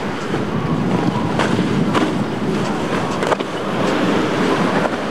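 Mako center-console boat with a single Mercury 150 outboard running hard through rough inlet waves. Engine noise blends with rushing spray and water, and the hull slaps sharply on the waves several times.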